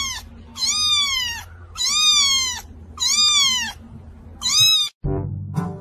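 Young kitten mewing over and over, about five high calls roughly a second apart, each rising briefly and then falling in pitch. Brass music cuts in near the end.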